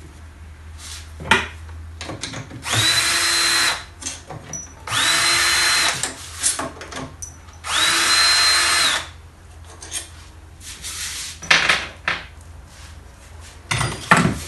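Cordless drill-driver running in three short bursts of about a second each, its motor spinning up quickly and then holding speed, as it unscrews the screws from an alternator's aluminium housing. The screws come out freely, not seized. Short clicks and knocks of handling come between the bursts.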